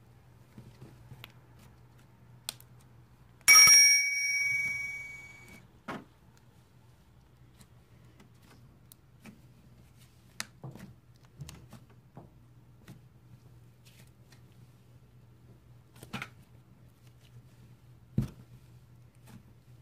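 A single sharp bell-like ding about three and a half seconds in, ringing out and fading over about two seconds, among faint scattered clicks and taps.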